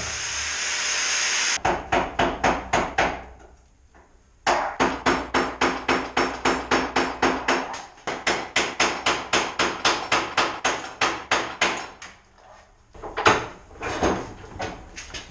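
An angle grinder cutting steel cuts off about a second and a half in, followed by rapid hammer blows, about four to five a second, in long runs with a short pause between them, and a few heavier irregular knocks near the end.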